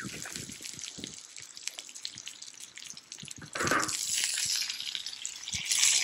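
Shoestring potatoes and garlic cloves frying in a cast-iron skillet over a wood fire: a steady sizzle full of fine crackles, growing louder a little past halfway.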